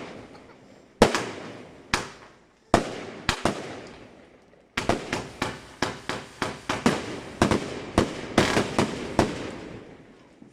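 Klasek Brocade War firework cake firing its salutes: sharp, loud bangs, a few single ones at first, then from about five seconds in a rapid run of about three or four bangs a second that fades out near the end.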